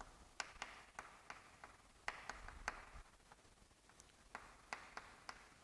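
Faint, irregular taps and short scratches of chalk writing on a chalkboard.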